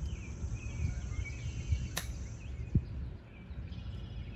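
A golf wedge striking the ball once in a chip shot, a sharp click about two seconds in, followed a moment later by a brief low thump. Birds chirp and wind rumbles on the microphone throughout.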